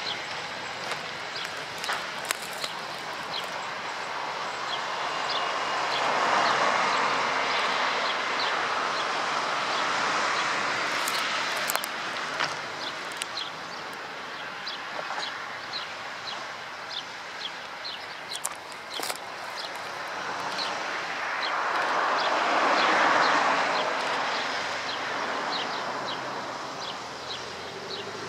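A works train rolling away into the distance, its wheels and coaches fading over the yard tracks, with high insect ticks chirping throughout. A rushing noise swells and fades twice, about a quarter of the way in and again near the end.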